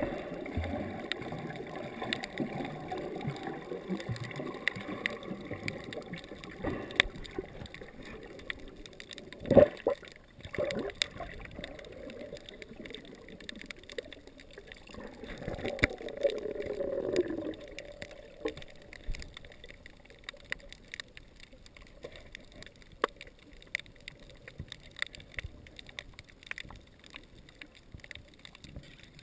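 Water heard underwater through a camera's housing: a muffled churning with scattered sharp clicks and crackles, one loud thump about ten seconds in, and a brief swell of water noise around sixteen seconds before it settles quieter.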